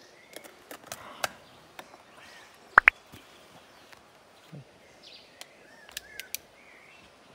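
Glass bottles and jars clinking and tapping as they are handled on a stone slab, with a sharp, ringing double clink about three seconds in. Birds chirp now and then.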